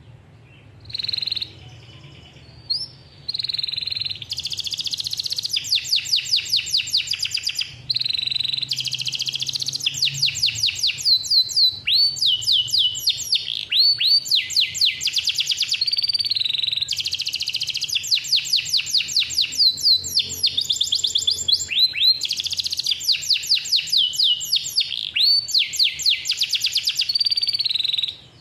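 Domestic canary (male) singing a long song of rapid rolling trills, fast runs of repeated high notes with dropping, swooping phrases between them. It starts about a second in and barely pauses until it stops just before the end.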